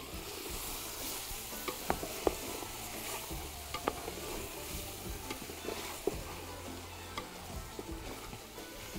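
Whole chickens and chopped tomatoes sizzling as they fry in a large aluminium pot on a gas burner, turned over and stirred, with scattered light knocks and scrapes as they are moved. This is the stage where the chicken is browned in the onion and tomato base.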